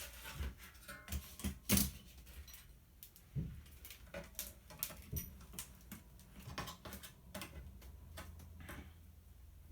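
Irregular clicks, taps and small metallic twangs of hand tools prying at the sheet-metal and plastic parts of a CD changer, working a stuck piece loose.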